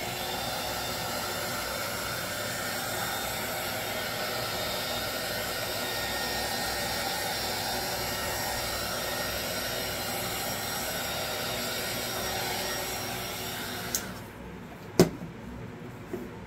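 A small electric blower motor runs steadily with a faint whine and cuts off suddenly about fourteen seconds in. A sharp knock follows about a second later.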